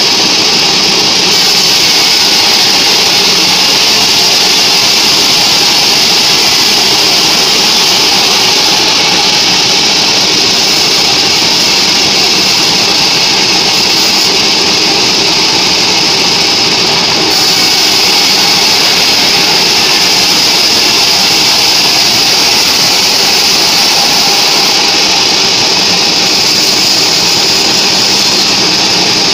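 Band sawmill running and cutting lengthwise through a mahogany beam, loud and steady throughout.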